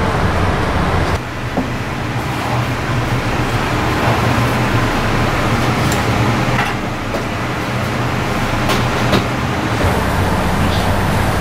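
Steady rushing background noise with a constant low hum, and a few faint light clicks scattered through the middle.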